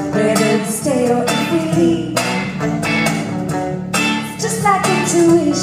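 Live band music: strummed acoustic guitars with a woman singing a wavering melody over them, heard from the audience in a theatre.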